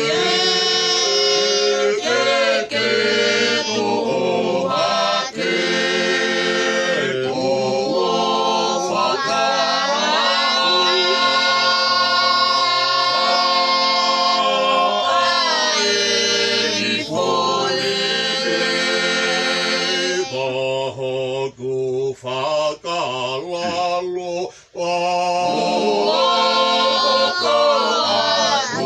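Mixed group of men's, women's and children's voices singing unaccompanied in harmony, with long held notes. About two-thirds of the way through the singing thins and breaks off briefly a few times before it resumes fully.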